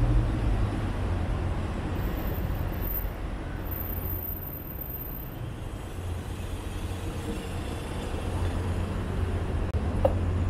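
Steady rumble of road traffic, easing a little midway and building again near the end.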